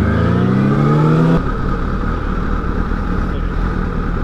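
Kawasaki ZX6R's inline-four engine heard from the rider's seat, rising in pitch under acceleration, then the throttle snaps shut about a second and a half in and it drops to a low, steady running as the bike slows.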